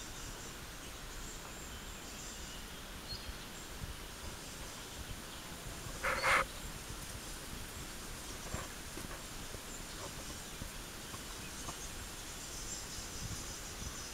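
Faint waterside ambience: insects chirping high-pitched on and off over a low steady hiss. There is one short, louder sound about six seconds in.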